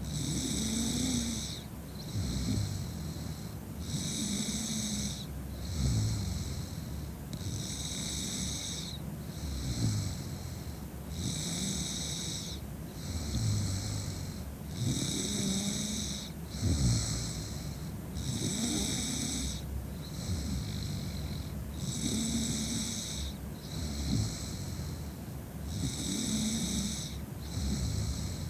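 A woman snoring steadily in deep sleep after heavy drinking, with about eight breaths, one every three and a half to four seconds. Each breath has a rough low snore and a breathy hiss.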